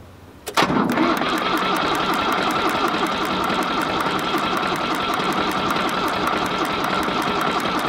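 Ford 1910 tractor's three-cylinder diesel turning over on the electric starter, a steady whirring with an even rapid beat of compression strokes, starting abruptly about half a second in. It is being cranked to try to start it after sitting for years, with fresh fuel, a new fuel filter and the fuel system bled.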